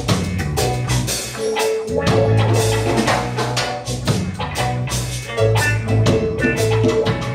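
Live band playing an instrumental passage of a Rastafari-themed song: a steady bass line, a held mid-range note and busy percussion with tambourine-like hits, no vocals.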